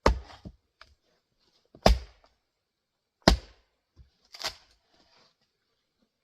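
Axe blows into grand fir firewood: three sharp chops about a second and a half apart, then a softer thump.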